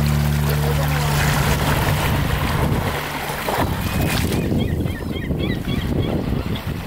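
Small sea waves washing over shingle at the water's edge, with wind buffeting the microphone. A steady low hum underlies the first half and stops about three and a half seconds in.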